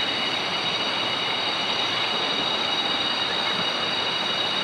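Waterfall rushing, a steady loud noise of falling water, with a few steady high-pitched tones over it.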